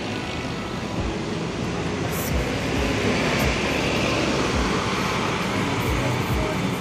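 Mercedes-Benz coach pulling out and driving close past, its engine running as it moves off and away.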